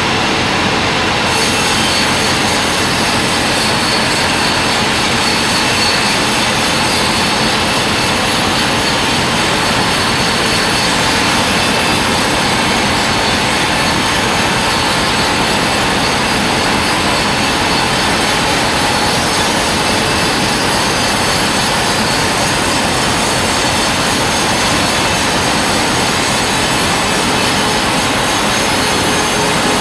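A band sawmill running: the blade and its motor make a loud, steady, unbroken noise.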